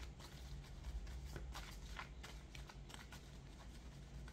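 Tarot cards being shuffled by hand, heard faintly as many small irregular clicks and flicks of card edges, over a steady low hum.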